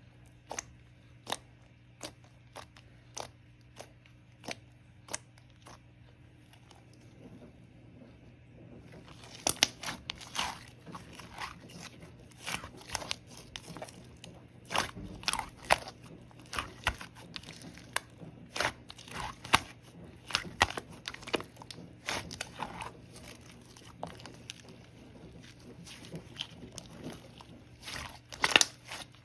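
Pink pearl slime being pressed and worked by hand, making sharp clicks and pops of trapped air. At first there is a slow, even click about every two-thirds of a second. From about a third of the way in it turns into louder, denser crackling and popping.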